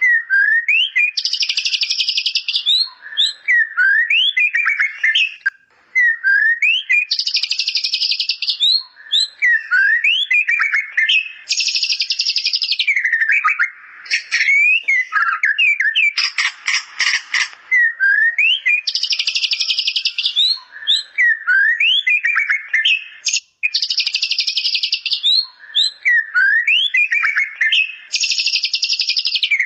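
White-rumped shama (murai batu) singing a song filled with bar-winged prinia (ciblek) phrases. Clear upslurred whistles alternate every few seconds with loud, rapid, dry trills of about a second.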